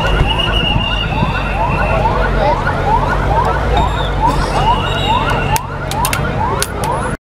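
Vehicle siren of a police or VIP escort car sounding in quick repeated rising wails, a couple a second, over a low engine rumble. A long high whistle note sounds near the start and again past the middle, and the sound cuts off abruptly just before the end.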